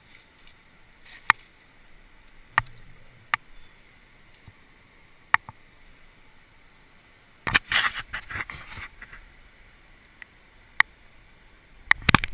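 Climbing gear being handled: scattered sharp clicks and clinks, like metal carabiners knocking together. About halfway through comes a couple of seconds of rustling and scraping, and a quick run of clicks near the end.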